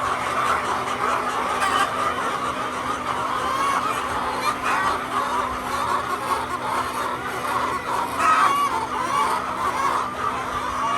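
Chickens clucking together continuously, the sound of a large flock, over a steady low hum.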